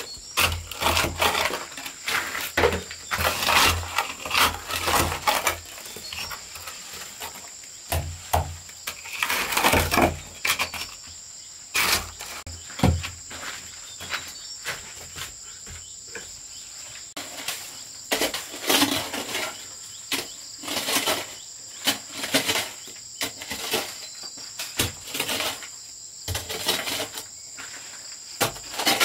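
A shovel scraping and knocking against dirt and rubble on an earth floor, in irregular strokes, over a steady high chirring of insects.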